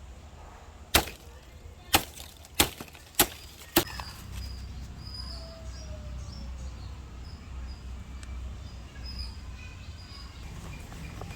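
Five sharp chopping strikes of a blade into wood or plant stalk, the first four about a second or less apart and the fifth close behind.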